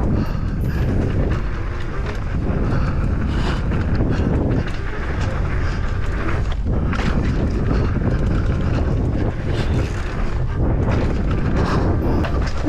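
Wind buffeting the microphone over a steady low rumble of tyres on a rough dirt trail, with frequent knocks and rattles from a Commencal Meta SX Power e-mountain bike being ridden fast.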